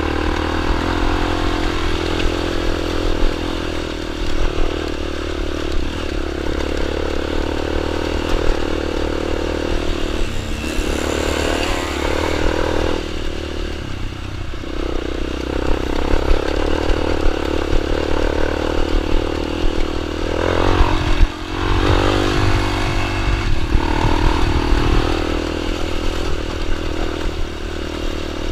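Small dirt bike engine running steadily, its note shifting as the throttle changes about ten seconds in and again about twenty seconds in.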